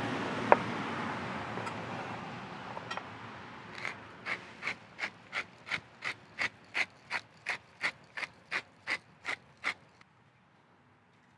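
Pepper mill being twisted over raw pork ribs, giving about three short ratcheting grinds a second for some six seconds. There is a single sharp knock about half a second in.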